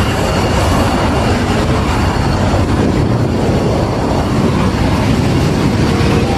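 F-16 fighter jet's single turbofan engine running loud and steady as the jet rolls along the runway, a rushing roar with a faint high whine.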